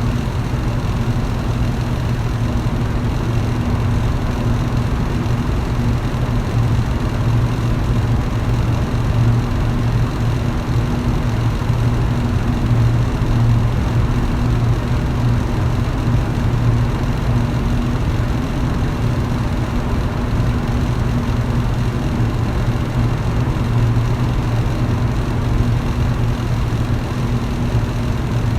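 Electric fan running steadily: a constant low motor hum under an even rush of moving air.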